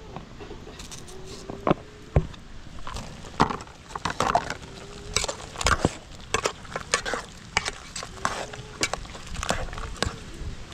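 Irregular knocks and clatter of cooking pots and utensils, with short wavering calls of fowl in the background every few seconds.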